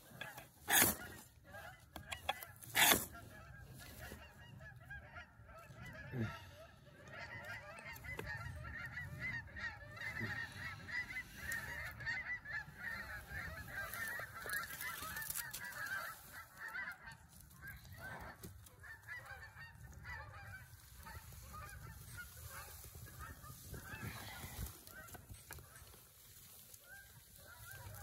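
Two quick scrapes of a ferro rod being struck, about one and three seconds in, then a flock of geese honking in a dense, overlapping chorus.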